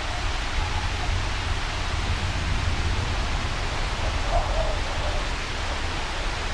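Steady wash of rain and wind noise over a deep, continuous low rumble.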